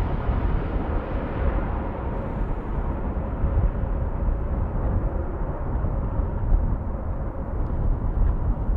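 Jet airliner's engine rumble as the aircraft moves away, the higher hiss slowly fading while a deep rumble carries on.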